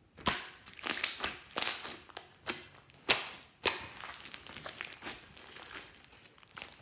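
Hands squeezing and stretching glossy slime loaded with beads and glitter, giving sticky snaps and air-bubble pops. Sharp pops come about every half second for the first four seconds, then the sound settles into softer, quicker crackling.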